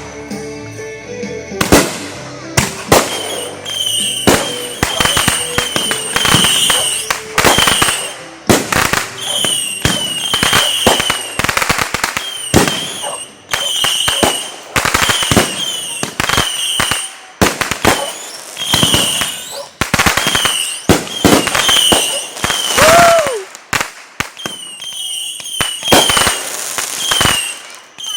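Consumer fireworks going off in rapid succession: a long run of sharp bangs and crackles, with a falling whistle about 23 seconds in.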